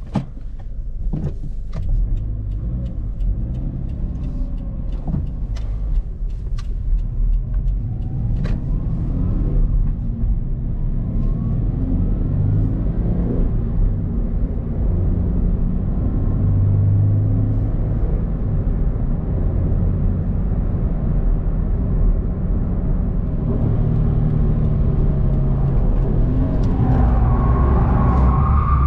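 Subaru BRZ's 2.0-litre naturally aspirated flat-four boxer engine running under way, with road noise, heard inside the cabin. Several sharp clicks in the first few seconds; near the end the engine grows louder and climbs in pitch as the car accelerates.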